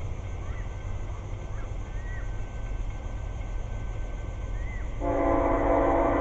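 An approaching train's low rumble with a few faint bird chirps, then the locomotive's horn sounding loudly, starting about five seconds in and held.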